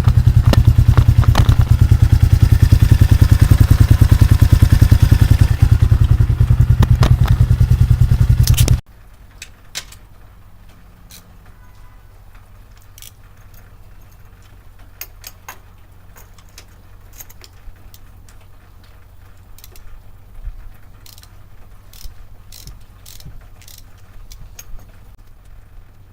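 Pitster Pro XTR 250's single-cylinder four-stroke engine running at a steady idle as it warms up before an oil change, a loud rapid pulsing. It cuts off abruptly about nine seconds in. After that come scattered light clicks and clinks.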